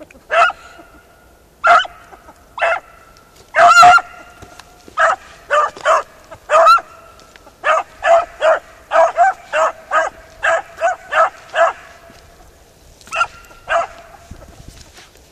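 Beagle harrier hounds barking in short yelping calls. A few spaced barks come first, then a longer, loudest cry about four seconds in, then a quick run of about a dozen barks, and two more near the end.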